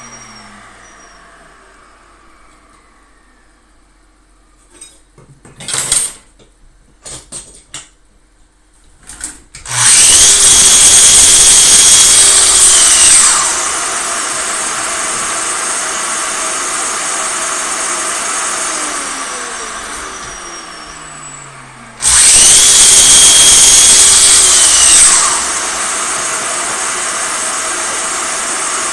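Sliding circular (miter) saw cutting red pine boards. A few knocks of wood being set in place come first. About ten seconds in the saw starts and cuts for about three seconds with a high whine, then runs on lower and winds down with falling tones. A second cut of about three seconds starts near 22 s.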